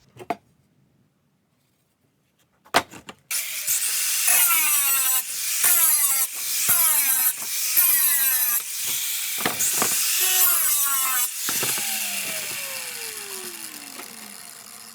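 Power saw cutting extruded aluminum scrap in a run of short, repeated bites, the motor's pitch dropping under each one. Near the end it is let go and winds down, its pitch falling steadily as it fades.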